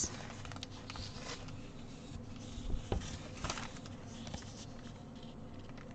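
Faint rustling of a printed cross-stitch canvas being unfolded and smoothed by hand, with a light tap about halfway through, over a low steady hum.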